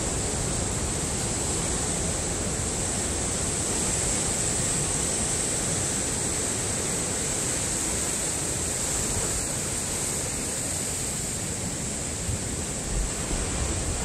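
Heavy Pacific surf breaking over coastal rocks and churning into foam, a steady rushing wash of water noise.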